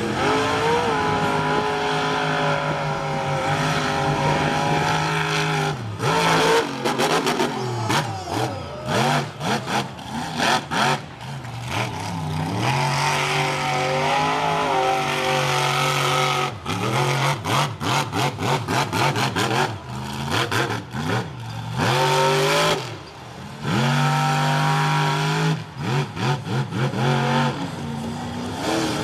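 Monster truck engine revving hard as the truck spins in the sand. It holds high revs for a few seconds at a time, broken by long stretches of rapid, choppy throttle stabs.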